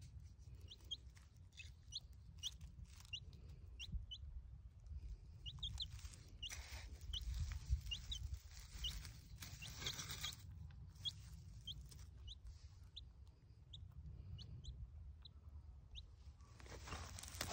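Domestic chicken chick peeping in short high chirps, about one or two a second, as it forages. A few louder scratchy rustles of a hand fork turning soil come in at intervals, the loudest about ten seconds in and near the end.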